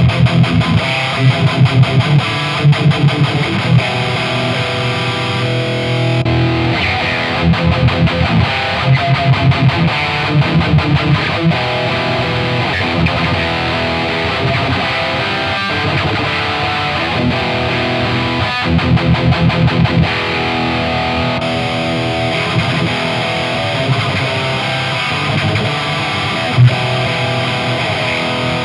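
High-gain distorted electric guitar through a Marshall 1960A 4x12 cabinet, playing runs of palm-muted chugs between held open chords. The sound switches from the new cab to the old, worn one about six seconds in, and back to the new cab about twenty-one seconds in; the old cab has a looser, less punchy low end.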